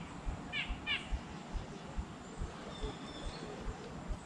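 A bird calling near the water: short runs of quick falling chirps, three of them in the first second, then a thin high whistled note later. Underneath runs a low soft thumping, a few times a second.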